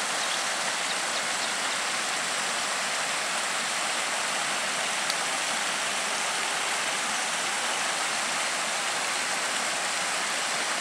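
Assiniboine River floodwater spilling over the edge of a paved highway and cascading down the eroded ditch bank: a steady rush of running water.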